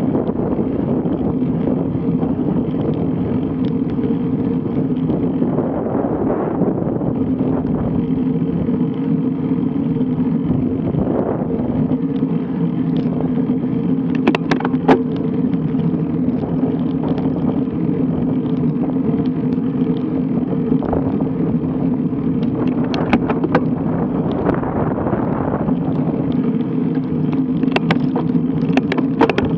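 Riding noise from a road bike picked up by a bike-mounted action camera: a steady rush of wind and tyre rumble with a constant hum. A few sharp clicks come about halfway through and again near the end.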